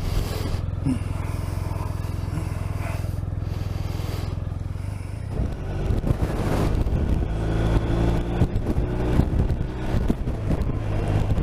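Motorcycle engine running steadily under way. From about five seconds in, the sound grows louder and uneven, with strong gusty wind buffeting over the engine.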